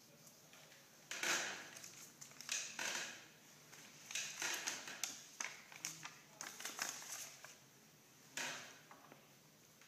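Sterile IV supply packaging being handled and opened: plastic and paper wrappers crinkling and rustling in a series of short bursts.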